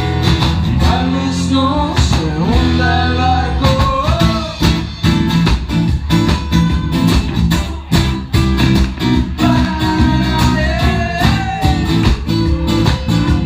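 Live band music: a steady drum beat, bass and guitars playing an instrumental passage, with a wavering melodic lead line that comes in during the first few seconds and again near the end.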